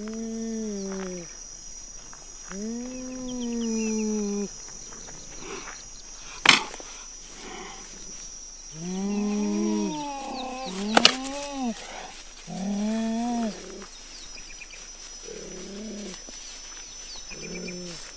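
Cheetah giving a series of about seven drawn-out calls, each rising then falling in pitch, the last two fainter. A steady high insect drone runs underneath, and two sharp clicks fall midway.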